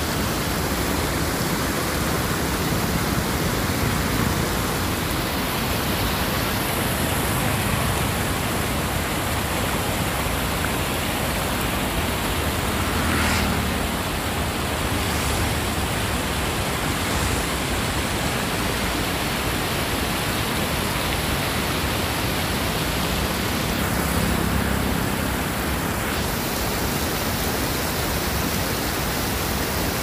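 River water rushing steadily over a low stone weir and flowing through a shallow channel, an even, unbroken rush of water. Twice, briefly, a low bump rises under it.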